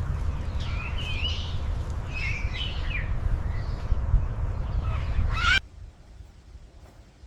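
Several wavering bird calls over a steady low rumble, then a sharp rising call; about five and a half seconds in, everything cuts off suddenly to a faint hiss.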